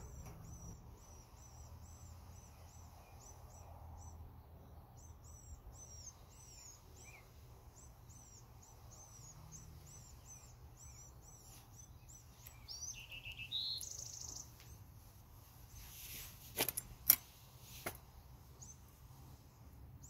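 Small songbirds chirping: long runs of quick, high repeated chirps, with a few lower trills later on, over a faint steady background hum. A few sharp clicks sound near the end.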